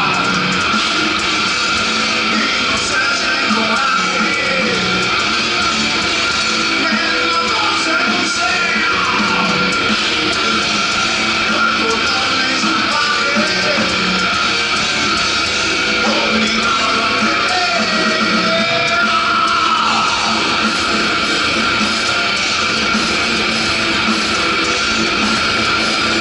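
Heavy metal band playing live: distorted electric guitars and drums at a steady loud level.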